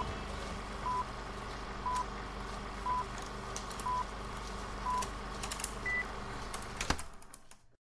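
Film-leader countdown sound effect: a short beep once a second in time with each number, over a steady low hum and hiss, with a single higher beep on the last number. Scattered clicks, then a sharp click near the end before it cuts to silence.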